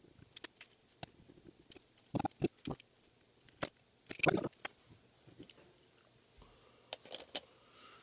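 Faint handling of a Canon 18-55mm kit lens during reassembly: scattered small clicks and taps of plastic lens parts and a small screwdriver, with louder clusters of clicks about two and four seconds in. Near the end, a few sharper clicks come as the lens is fitted onto the camera body.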